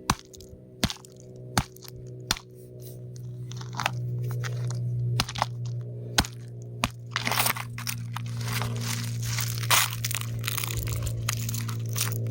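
Rock cracking and crumbling: sharp, separate cracks at first, turning into dense crunching and crackling a little past halfway. A steady low hum runs underneath and grows louder about four seconds in.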